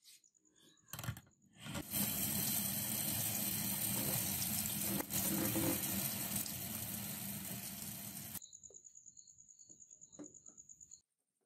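Tap water running into a stainless steel sink and over a knife blade, rinsing ferric chloride etchant off the steel. A knock comes about a second in, and the water cuts off suddenly a little past halfway.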